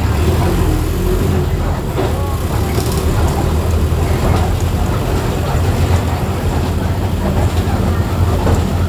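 Mercedes-Benz OF 1418 bus diesel engine running with a steady, deep drone.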